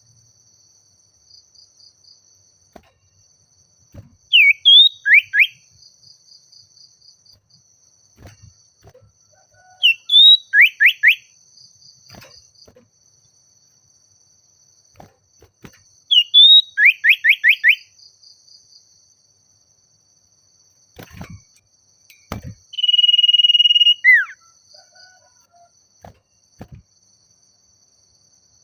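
Common iora singing: three phrases about six seconds apart, each a short rising whistle followed by a quick run of four to six falling notes, then a long steady whistle that ends in a downward slur. A faint, steady insect trill runs behind it.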